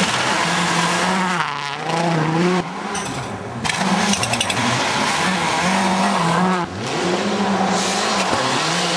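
Mitsubishi Lancer Evolution rally cars sliding through a snowy corner at full throttle, their engines revving hard. The engine pitch holds, drops and climbs again several times as the drivers lift and change gear, over a hiss of spraying snow.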